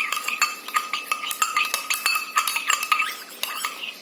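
A spoon stirring sticky glue-and-Boroplus slime in a container, clinking and scraping against its sides in quick, uneven strokes.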